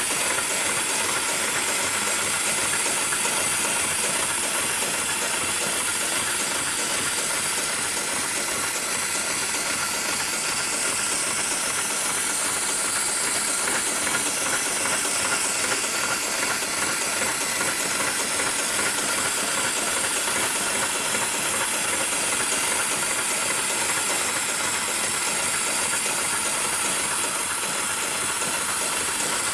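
Programmable heavy-duty industrial sewing machine running steadily, a continuous mechanical hiss with faint steady tones.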